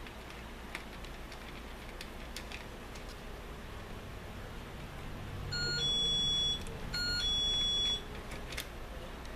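Two electronic beeps, each about a second long with a brief change of pitch at the start, come about half a second apart roughly six seconds in. Under them and around them are faint, scattered clicks of small screwdriver and hand work on the drone's plastic arm.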